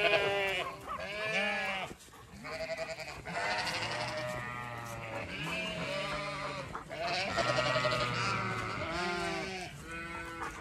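Zwartbles sheep bleating, many calls in quick succession and overlapping one another.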